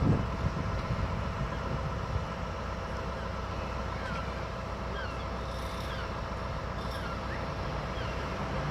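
Steady low rumble of an idling vehicle engine with a steady hum. From about halfway in, a bird gives short falling chirps over it, once or twice a second.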